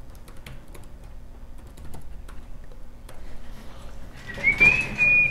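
Scattered light clicks of typing on a laptop keyboard, then about four seconds in a person whistles one high held note that rises slightly at the start.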